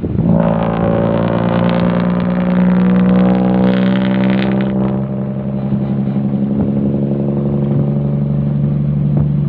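Isuzu Deca truck's diesel engine and exhaust pulling along the road, a loud steady drone heard from the open cargo bed, strongest in the first half and easing off about five seconds in.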